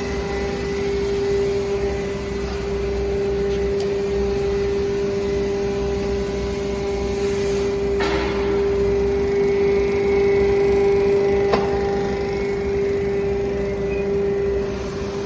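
Hydraulic scrap metal baler's power pack running with a steady whine. A brief noisy burst comes about halfway through, and a single sharp knock a few seconds later.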